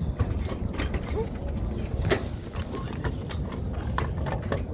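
Yakiimo vending machine mechanism clicking and clacking as the money is taken and the order is dispensed, with one sharper clack about two seconds in, over a low steady rumble.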